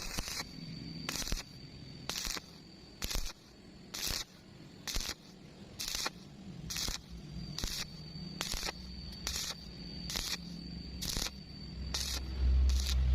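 Welding arc struck in short, evenly spaced bursts, about one a second, like stitch welding, over a low hum.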